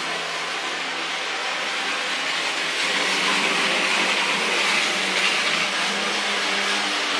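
HO gauge Mehano Thalys model train running around its track: a steady whirring hiss of the small electric motor and the wheels on the rails, a little louder from about three seconds in.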